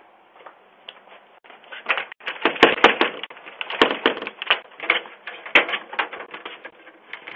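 A rapid, irregular clatter of sharp clicks and knocks. It starts about two seconds in, comes thickest in the middle, and thins out near the end.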